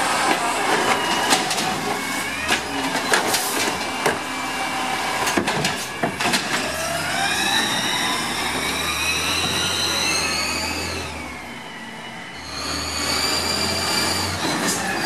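LNG Peterbilt 320 garbage truck with an Amrep automated side-loader arm emptying a green-waste cart, with repeated clanks and knocks over a hydraulic whine. The truck then pulls away, a whine rising in pitch and levelling off, and near the end the truck runs with steady whining tones again.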